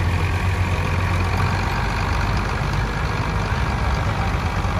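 Farm tractor engine running at low speed, a steady low hum, as a tractor drives slowly past.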